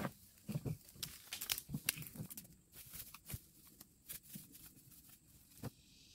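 Dry sticks and leaf litter crackling and snapping underfoot while a plastic trash can is dragged over the debris, with a plastic garbage bag rustling. The clicks are irregular and come thickest in the first half.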